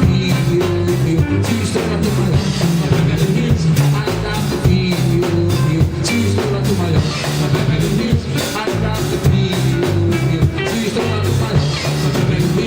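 Live band playing with drum kit, bass and guitar on a steady driving beat.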